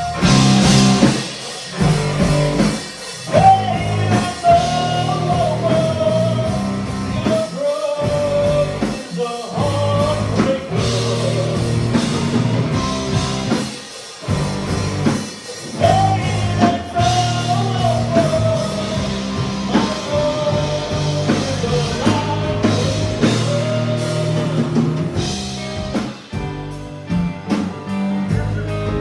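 Rock song with electric guitar and drum kit under a held, bending lead melody.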